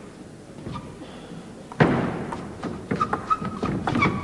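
Table tennis rally: the celluloid ball knocks sharply off bats and table amid thumping footwork, starting suddenly about two seconds in after a quieter stretch.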